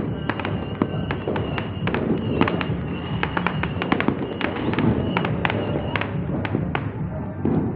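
Fireworks going off: many sharp, irregular pops and bangs, several a second, with music playing underneath.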